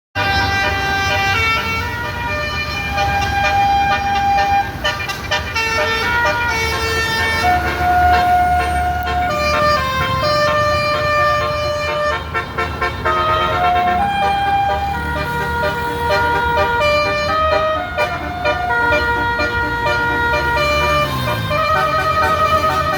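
Indonesian bus basuri ("telolet") multi-tone horn playing tunes, one held note after another in shifting pitches, over a bus engine's low steady hum.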